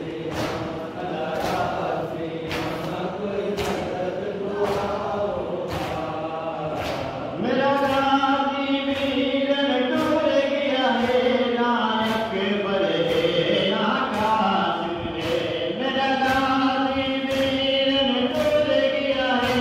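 Men's voices chanting a nohay, a Shia mourning lament, in unison, over sharp rhythmic slaps of matam (chest-beating) roughly once a second. The voices grow louder about seven and a half seconds in.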